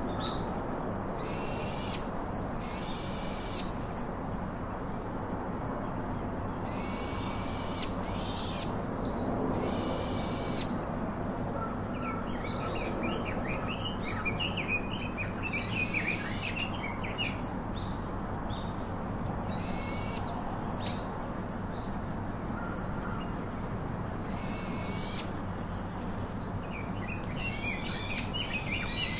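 Birds calling: short calls repeated every second or two, with bouts of quicker twittering about halfway through and again near the end, over a steady low hum.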